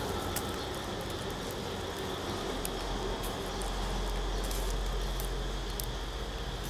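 Steady background hum and hiss, with a low hum swelling for a few seconds in the middle. A few faint clicks come from stiff coconut-leaf ribs being handled as a broom head is bound.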